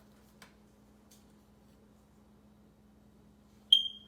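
Near-quiet room tone with a faint steady hum, then a single short, high bell-like ding near the end that rings out briefly.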